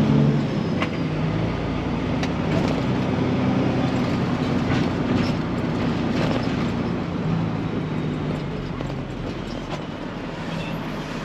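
Heavy diesel truck engine idling with a steady low hum, with a few sharp knocks and clatters now and then.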